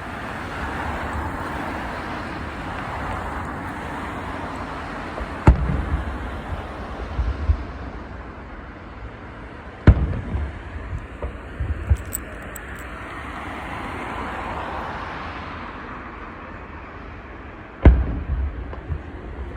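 Fireworks shells bursting: three sharp booms, about five, ten and eighteen seconds in, each followed by a low, uneven rumble for a second or two, over steady background noise.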